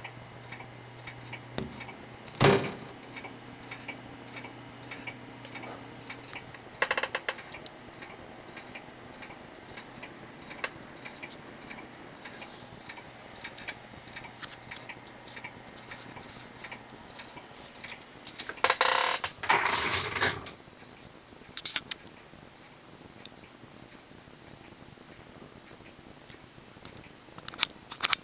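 Odd noise from a desktop PC: irregular small clicks and ticks over a faint low hum, with a sharp knock a couple of seconds in and a louder rattling spell about two-thirds of the way through.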